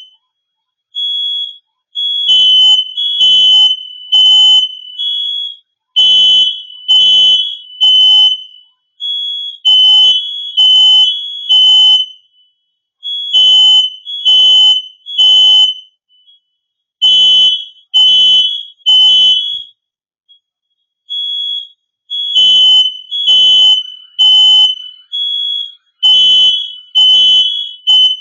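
Smoke detector alarm sounding: loud, high-pitched beeps in repeating groups of three with short pauses between, the temporal-three evacuation pattern, with fainter single beeps in the gaps between groups.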